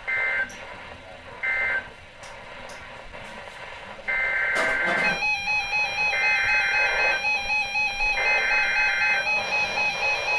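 Emergency Alert System SAME data bursts, a warbling two-pitch digital screech. Two short end-of-message bursts close the previous warning. About four seconds in, three longer header bursts about two seconds apart announce a new alert, a tornado warning. A steady electronic alarm tone comes in about five seconds in and holds under the later bursts.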